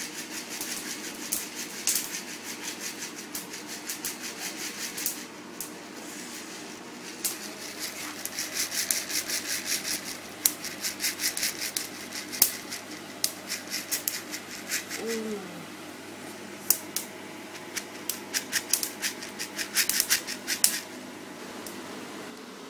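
Coffee beans roasting in a pan, cracking and popping in irregular sharp clicks, often several a second and in flurries: the first crack of the roast. A steady low hum runs underneath.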